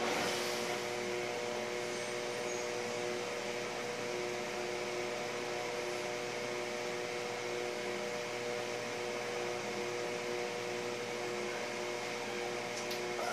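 Steady background hum: several steady tones over a constant hiss, with a short rustle at the start and a couple of faint clicks near the end.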